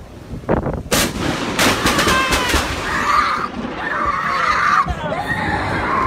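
Sharp, loud crack of a very close lightning strike about a second in, with a few more cracks just after, followed by a person screaming and shouting.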